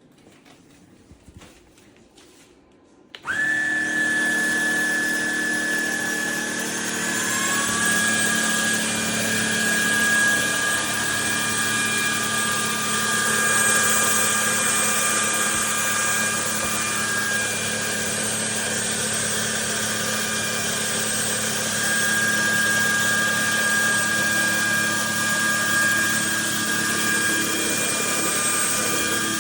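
Trucozie cordless stick vacuum switched on about three seconds in, after a few faint clicks. Its motor spins up over the next few seconds with a rising whine, then runs steadily with a high whine.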